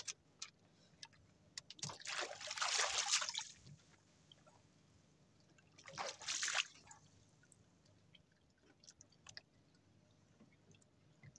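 Sea water splashing at the side of a small boat: a longer splash about two seconds in, a shorter one about six seconds in, with a few faint knocks between.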